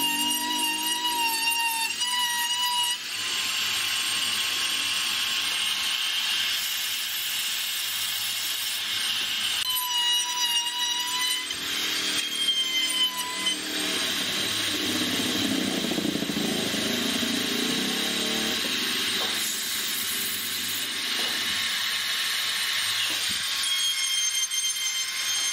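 A handheld electric rotary tool with a carving bit grinding into wood. Its high motor whine wavers as the bit bites, and it alternates with stretches of rough grinding noise.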